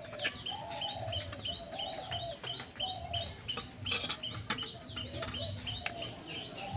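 A small bird calling over and over, a short high chirp about three times a second, with a lower warbling call beneath it. A few sharp knocks come from coconut pieces and a spoon handled in a steel bowl, the loudest about four seconds in.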